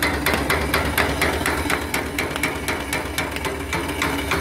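Small engine-driven boiler feed pump, worked off the steam engine's eccentric, knocking steadily at about four to five knocks a second as it pumps water into the boiler. The steam engine runs underneath.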